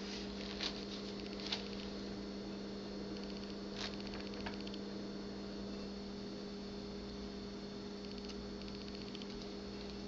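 A steady low electrical hum, with a few faint clicks and taps.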